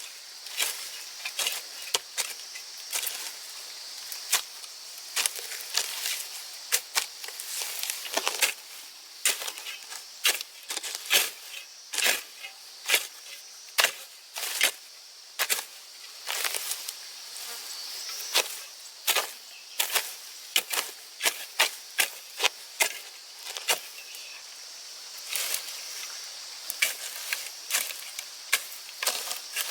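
Insects trilling steadily in a high pitch, with irregular sharp knocks or taps, about one or two a second, standing out above them.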